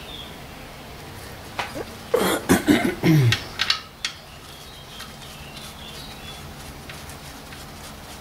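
Sump plug with a new copper washer being handled and started into the oil pan by a gloved hand: a cluster of light metallic clicks, knocks and scrapes lasting about two seconds, starting about a second and a half in, over a faint steady hum.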